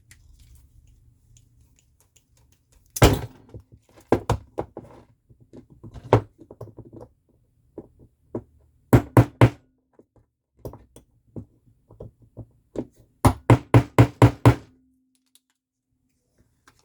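Hammer tapping on a tool set against a hood lock cylinder to drive its parts out. The strikes are sharp knocks: a single hard one, scattered lighter taps, then quick runs of about four and about seven blows.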